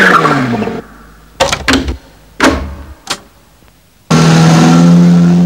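Cartoon taxi sound effects: a falling glide dies away as the taxi pulls up. A few short thumps follow as luggage is loaded and doors shut. About four seconds in, a loud, sustained low musical note starts as the taxi sets off, leading into music.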